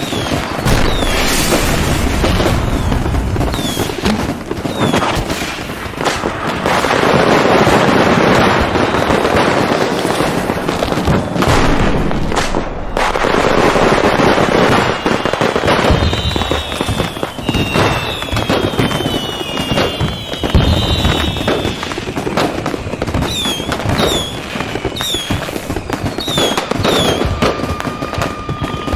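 Fireworks display: a dense run of bangs and crackling, with thin whistles gliding in pitch through the second half.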